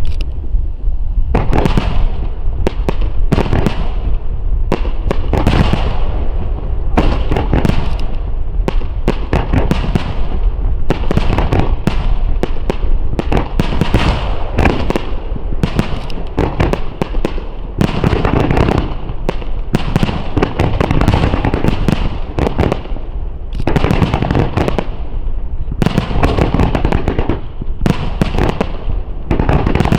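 Starmine fireworks barrage: shells bursting one after another in rapid, overlapping bangs, with crackling between the bursts.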